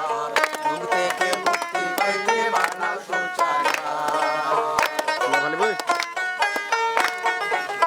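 Music led by a quickly plucked string instrument playing a fast, busy melody.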